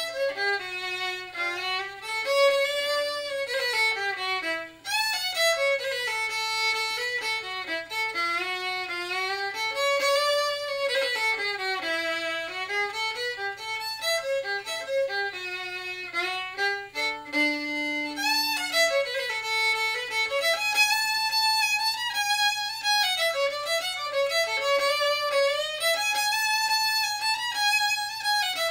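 Solo fiddle playing a lively tune in quick running notes, with one low note held for a moment about two-thirds of the way through.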